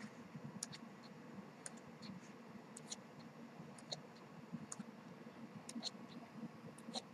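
Glossy pages of a CD photo book turned by hand: faint, irregular paper flicks and clicks, a bit over one a second.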